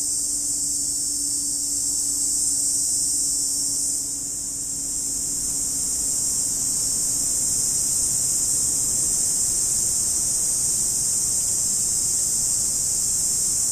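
Steady, high-pitched chorus of insects, a continuous even buzz that does not vary.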